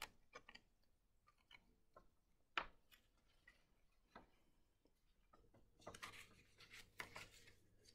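Near silence: room tone with a few faint scattered clicks, and light rustling and clicking a little before the end.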